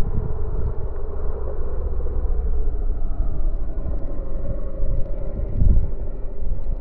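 Polaris RZR 900 S side-by-side engine running and revving as it tears through snow, under a heavy low rumble; its drone rises a little in pitch midway through.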